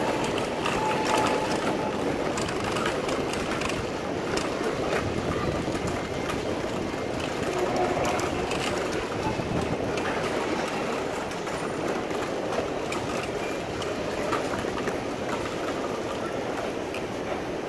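Steady rumbling hubbub of a busy airport concourse, heard while moving through it, with faint scattered clicks.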